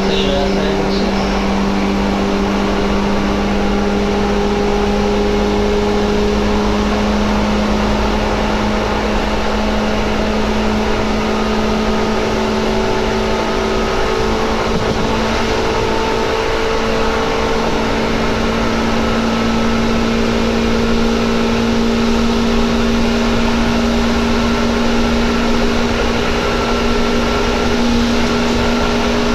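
Seibu 2000 series electric train running, heard from inside the car: a loud, steady whine from its field-chopper-controlled DC traction motors and gears over the rumble of the wheels on the rails. The whine rises slowly in pitch as the train gathers speed.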